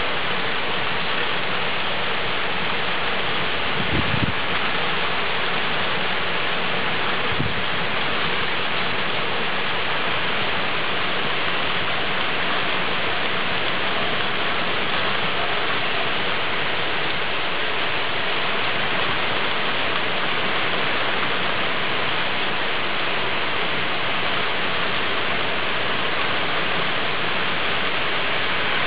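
Heavy rain pouring steadily in a thunderstorm downpour, with a couple of brief dull knocks about 4 and 7 seconds in.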